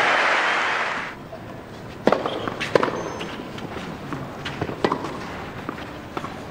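Crowd applause that cuts off about a second in. Then a tennis rally: sharp pops of racket strings striking the ball, with ball bounces, about one every second.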